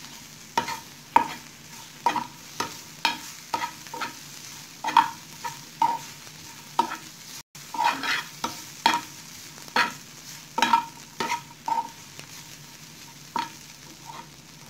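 A spatula scrapes and knocks against a frying pan as dry-fried bitter gourd slices are stirred and turned, about two strokes a second, over a faint sizzle. The stirring stops near the end.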